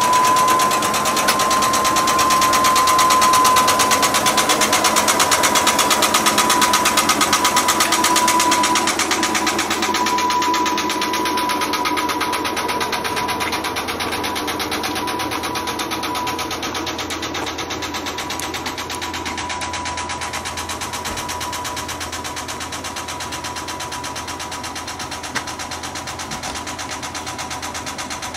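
An ED90 Abt-rack electric locomotive's on-board machinery running: a steady high whine that has just risen to pitch and holds, over a fast, even clatter. It grows slowly quieter.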